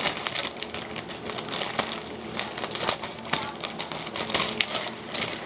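Plastic courier pouch crinkling and rustling as it is handled and pulled open by hand, with many small irregular crackles.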